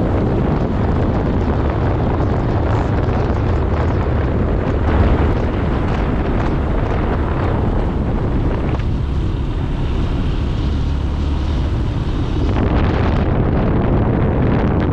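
Steady, loud wind rumbling on the microphone, heaviest in the low end, with the road noise of a moving vehicle underneath.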